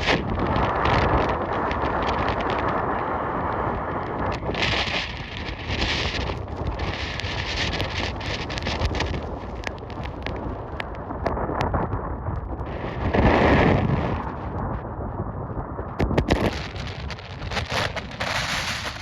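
Blizzard wind gusting hard and buffeting the microphone: a loud rushing noise that swells and eases, with its strongest gust about 13 seconds in, and scattered sharp crackles throughout.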